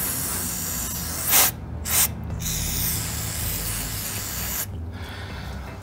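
An aerosol can of carburettor cleaner spraying in several long hisses with brief breaks between them. It is washing dust and dirt off the rubber door stop that makes the door creak.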